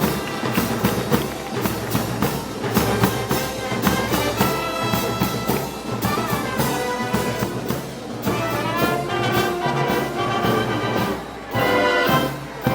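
Brass band playing festival march music, with held brass lines over a steady beat of drum and cymbal strokes.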